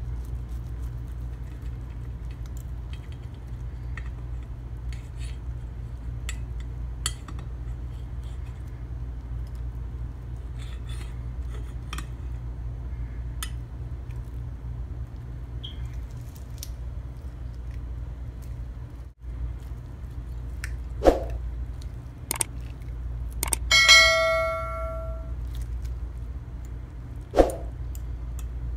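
Stainless steel knife and fork on a ceramic plate cutting through fried egg toast: light scattered clicks and scrapes, then a few sharp clinks near the end, one of which rings on for about a second and a half. A steady low hum runs underneath.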